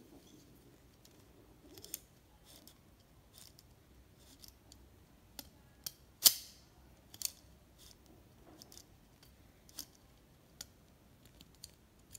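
Scattered small metallic clicks from a stripped-down Leica IIIf's shutter mechanism being worked by hand, at irregular spacing. One much louder sharp snap with a brief ring comes about six seconds in.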